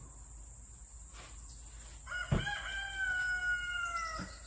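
A rooster crowing: one long crow starting about halfway through, dipping slightly in pitch toward its end. A low thump comes just as it begins, and a steady high cricket trill runs underneath.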